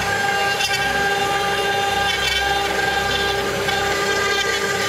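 CNC 6090 router's high-speed spindle running at 24,000 RPM with a steady high whine while a 3 mm ball-nose cutter carves wood in a finishing pass. The cutting hiss swells a few times as the tool moves through the relief.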